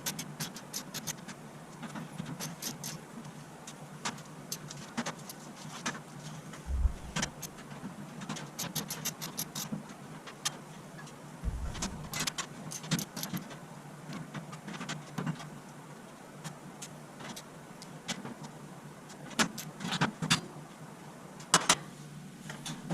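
Scattered sharp clicks and metallic taps of a hand tool working out the four small screws of a Maytag DE7600 dryer's rear sheet-metal access plate, some in quick runs of several clicks, the loudest near the end.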